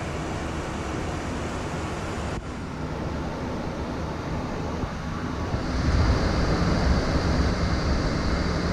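Steady rushing airflow and engine noise on the flight deck of a Boeing 737-800 in flight, with a brief dip about two and a half seconds in; from about halfway through it becomes louder and deeper, with a faint thin high whine on top.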